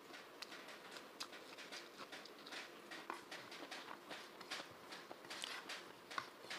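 Close-miked chewing of a mouthful of rice and vegetables, with irregular wet mouth clicks and lip smacks several times a second, and light squelching of fingers mixing rice on the plate.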